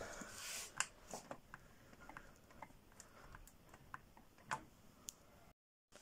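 Faint, irregular light clicks and ticks, about a dozen of them, over a quiet background.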